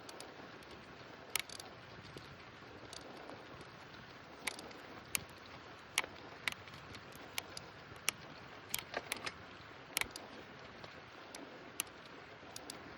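Bicycle ride sound: a steady hiss of tyres and wind with irregular sharp clicks and light rattles scattered through it.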